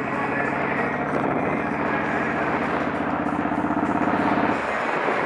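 Motorcycle engine running at a steady cruising speed under a wide rush of wind noise; the steady engine note drops away near the end.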